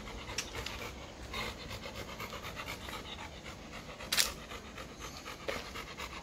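Labrador retriever panting rapidly and rhythmically, mouth open. About four seconds in comes one brief, sharp noise, louder than the panting.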